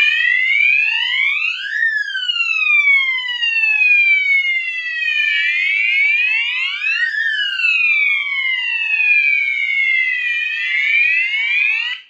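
Electronic fire alarm sounder wailing in alarm: a siren tone that sweeps up for about two seconds and slides down for about three and a half, repeating, then cuts off abruptly at the end.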